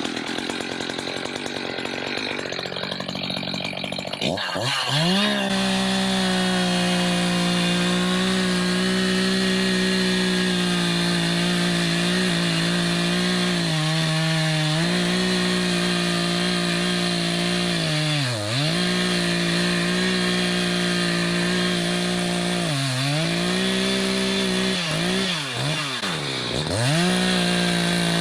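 Echo two-stroke chainsaw cutting into a large tree trunk: it runs unevenly for the first few seconds, revs up about four seconds in and then holds at high speed, its pitch dipping briefly several times.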